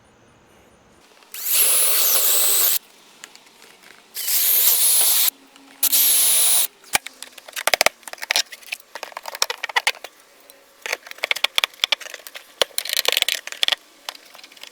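Power drill boring holes, in three short runs of about a second each, the second and third close together. After them comes a long run of irregular clicks and taps.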